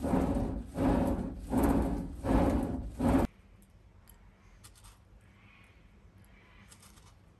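Hand-pumped clay pot bellows blowing a charcoal fire: rhythmic whooshing puffs of air, about five strokes, cut off abruptly a little over three seconds in. A few faint clicks follow as small cast-iron prills are handled in a clay dish.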